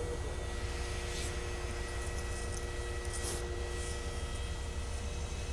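Cabin sound of a LiAZ-5292.22 low-floor city bus's diesel: a steady low rumble with a constant whine, and three short hisses about a second, three seconds and four seconds in.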